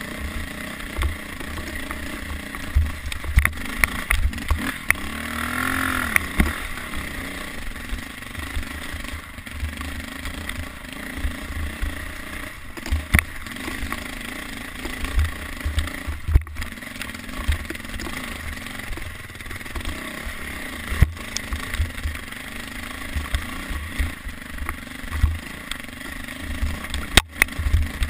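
Dirt bike engine running while ridden over a rough single-track trail, revving up and falling back once about five or six seconds in. Gusty low rumbling from wind on the helmet microphone and a few short knocks from the bumpy ride.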